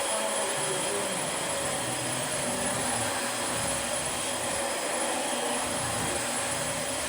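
Dyson DC25 Animal ball upright vacuum cleaner running steadily, a constant rush of air over the motor's hum and a high, thin whine.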